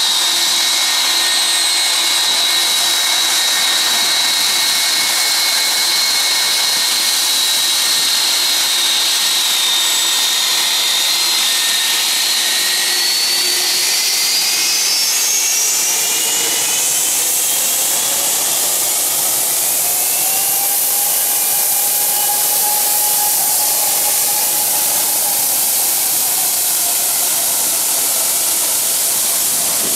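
Boeing 757's twin turbofan engines running with a steady high whine over a rushing hiss. About halfway through the whine begins rising in pitch as the engines spool up toward takeoff thrust.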